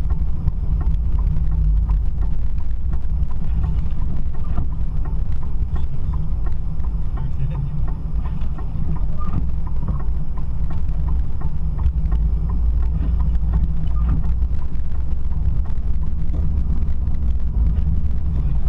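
A vehicle driving, with a steady low rumble of engine and road noise.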